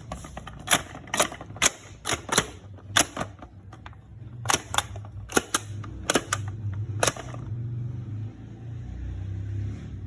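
Sharp clicks from plastic toys being handled: about fourteen at irregular spacing, stopping about seven seconds in, after which a steady low hum remains.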